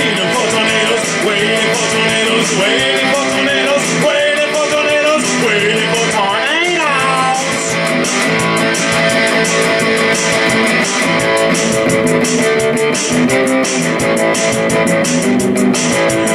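Black single-cutaway electric guitar strumming chords in a rock song, with a few notes gliding up and down in pitch.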